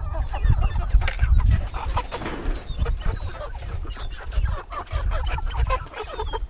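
A flock of meat chickens peeping and clucking continuously at close range, many short chirps overlapping, over a low rumble.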